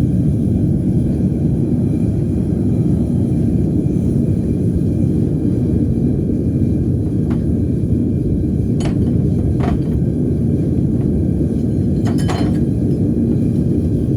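Furnace burners running: a steady low roar, with a few light metallic clinks in the second half.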